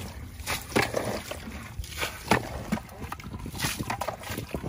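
Fish thrashing in shallow muddy water: a series of short splashes and sloshes, about one every second.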